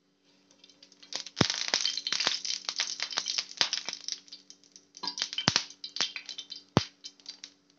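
Cumin seeds crackling and popping in hot oil in a non-stick frying pan: a dense run of sharp pops, with a few louder ones, that eases briefly about halfway and then picks up again. The seeds spluttering this way shows the oil is hot enough for tempering.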